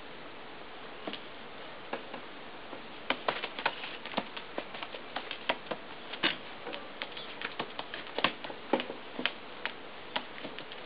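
Pigeon pecking at food offered in a person's fingers and on the table top: irregular sharp clicks, only a few at first, then coming quickly from about three seconds in.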